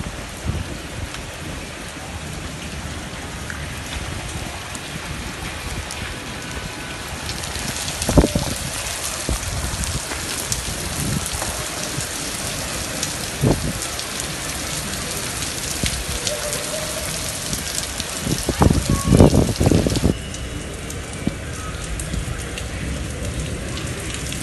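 Rain falling steadily and splashing onto a puddled concrete rooftop. The hiss grows stronger about a third of the way in and eases again a few seconds before the end. A few low thumps come through it, the loudest cluster about three quarters of the way through.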